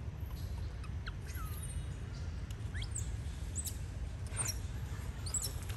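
Scattered short, high-pitched chirps, each quickly rising or falling in pitch, a dozen or so over several seconds, above a steady low rumble.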